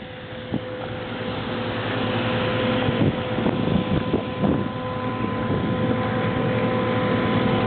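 Road sweeper running, a steady mechanical rush with a high whine through it that grows louder over the first few seconds.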